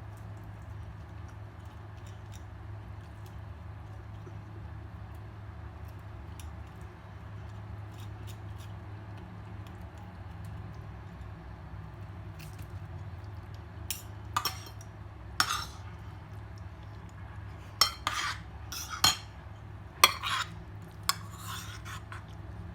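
Mealtime dish sounds: plates and utensils clinking and scraping, faint at first, then several sharper knocks and clatters in the second half. A steady low hum sits underneath.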